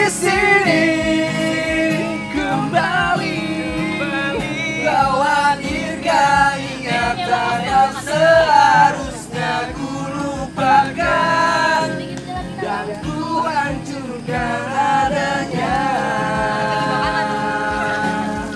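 A song with a singing voice holding long notes over musical accompaniment with a steady low beat.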